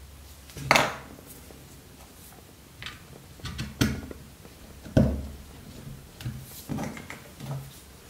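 Light clicks and knocks from handling the small metal parts of a Victorinox Cadet pocketknife and a small plastic bottle on a rubber-topped board. There are about a dozen short knocks, the loudest about a second in and about five seconds in.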